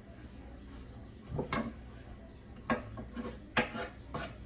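Kitchen utensils clinking and knocking against cookware, about five separate sharp knocks starting around a second and a half in.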